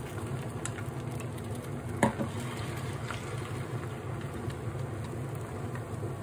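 Beaten egg with pea shoots sizzling in an oiled rectangular tamagoyaki pan on an induction hob, over a steady low hum. A single sharp knock with a brief ring about two seconds in.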